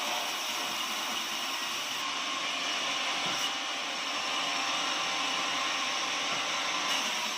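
Sawmill machinery running with a steady, unbroken noise.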